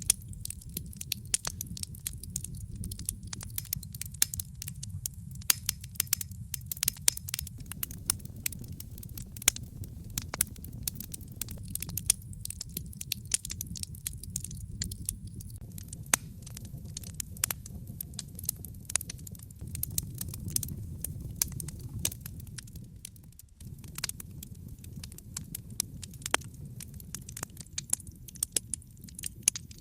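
Wood fire crackling in a fireplace: frequent sharp pops and snaps over a steady low rumble, which briefly drops away about three-quarters of the way through.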